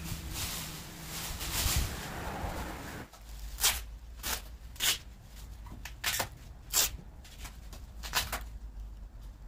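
Thin plastic masking sheet rustling as it is handled and smoothed down over a car. After about three seconds come a series of short, sharp crackles and snaps, irregularly spaced.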